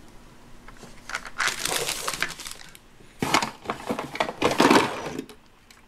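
Rustling and crinkling of packaging and plastic toy parts as a pink plastic piece is pulled out of a cardboard box, in two stretches about a second and a half and two seconds long.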